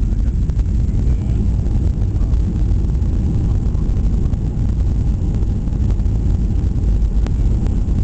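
Cabin noise inside a Boeing 737-800 airliner on its landing approach: a steady, low rumble of engines and airflow.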